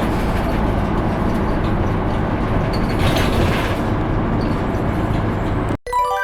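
Diesel route bus driving, a steady engine and road rumble heard from the cabin. It cuts off abruptly near the end, and a ringing chime follows.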